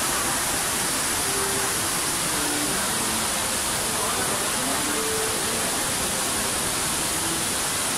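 Multi-storey indoor water-curtain waterfall pouring steadily, an even rush of falling water, with faint voices of shoppers underneath.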